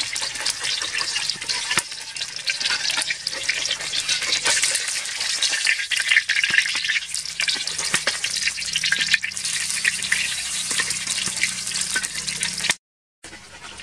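An egg frying in hot oil in a steel wok, sizzling and crackling, with a metal spatula scraping and clicking against the wok as it lifts and turns the egg. The sizzle cuts off abruptly near the end.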